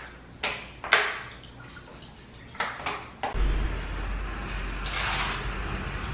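A few sharp knocks of containers being handled, then about three seconds in water starts running and splashing, swelling in surges, as water is put down for washing a kitchen floor.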